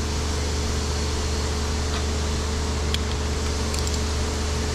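Steady machine hum and hiss in a workshop, with a few faint metallic clicks: nuts and a socket being handled on a stud, about two, three and nearly four seconds in.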